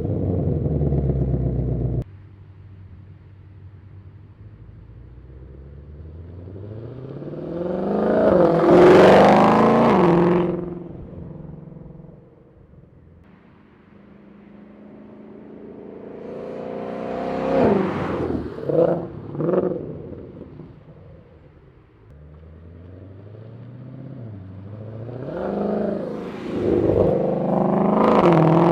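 2021 Ford Mustang Shelby GT500's supercharged 5.2-litre V8 through its stock exhaust, its note rising and falling several times: a long build peaking about nine seconds in, a few quick blips around eighteen to twenty seconds, and another build near the end. The sound cuts off abruptly a couple of seconds in and changes again twice, like edits between takes.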